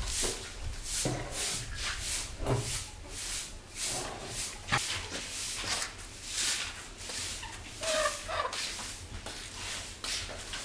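Broom sweeping the ground in steady strokes, a short swish about twice a second.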